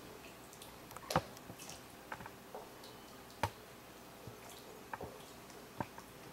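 Wooden spoon stirring a thick curry in an enamelled pot: soft wet squelching, with a few sharp knocks of the spoon against the pot, the loudest about a second in.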